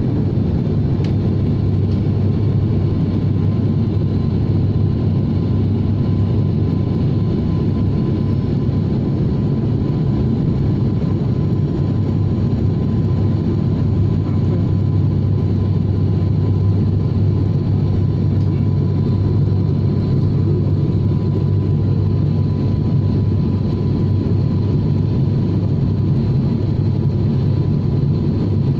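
Steady cabin drone of a high-wing turboprop airliner's engines and propellers, heard from a window seat: a deep, even hum with a faint steady whine above it.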